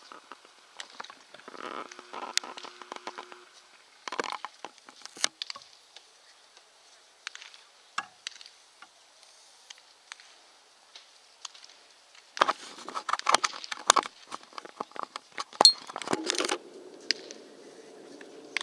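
Irregular sharp pops and clicks of baseballs smacking into leather gloves during a game of catch. A denser flurry of clicks and crackles comes from about twelve to sixteen seconds in.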